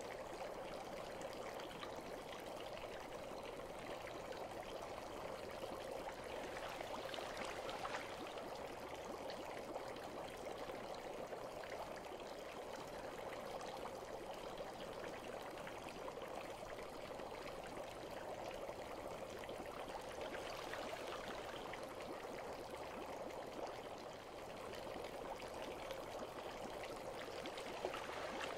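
Bath water running and trickling steadily, with a fine crackle of small pops throughout.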